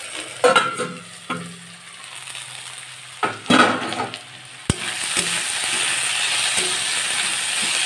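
A steel plate lid clatters off a kadai, with a sharp click near the middle. Then thin-cut potatoes sizzle steadily in hot oil as a spatula stirs them.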